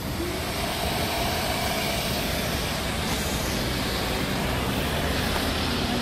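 Self-service car-wash vacuum station running steadily, its motor giving an even mechanical rushing noise that swells slightly about a second in.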